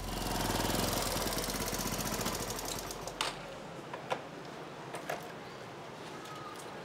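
A small motorcycle engine idling with a fast, even chugging, then switched off about three seconds in. A few sharp clicks follow.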